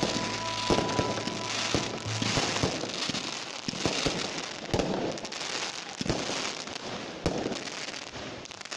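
Fireworks going off: a dense crackle from bursting crackling stars, cut by a sharp bang every second or so, dying down near the end.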